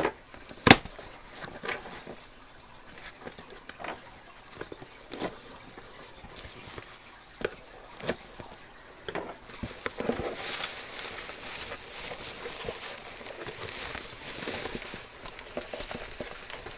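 A cardboard box being opened by hand: scattered sharp knocks and taps of the box and a knife on the bench, the loudest under a second in, then from about ten seconds in a steady rustling of cardboard flaps and bubble wrap as the wrapped contents are pulled out.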